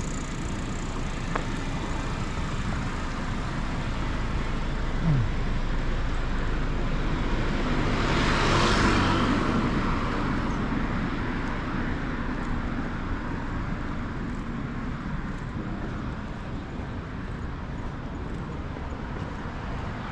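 Steady road traffic, with one vehicle passing close by: it rises to its loudest about nine seconds in and then fades away.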